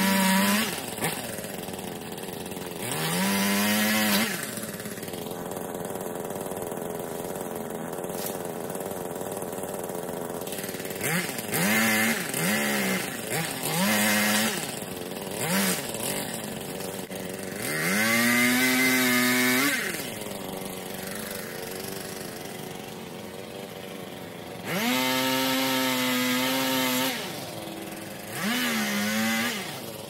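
Chainsaw engine idling and revved up in repeated short bursts, each rising to full speed for one to two seconds before dropping back to idle, about seven times.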